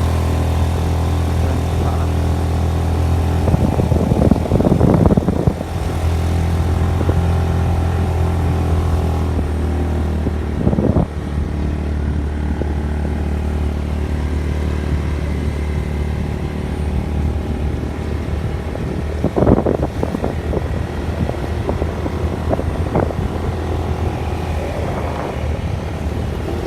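An engine running steadily at an even speed, with a few brief louder noisy stretches over it.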